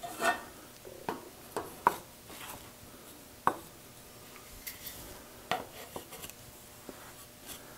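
Scroll-sawn wooden bowl rings being set down and stacked on one another on a metal saw table, knocking and clacking against each other: a handful of separate light knocks spread a second or so apart.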